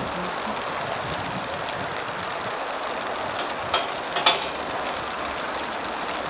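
Steady, even outdoor hiss, rain-like, beside the railway, with two short sharp clicks a little over halfway through.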